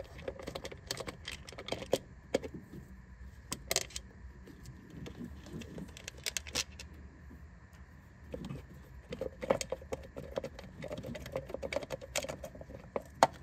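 Irregular small metallic clicks and clinks of a hand tool working out the bolts that hold a Toyota 3VZ-E V6's distributor cap.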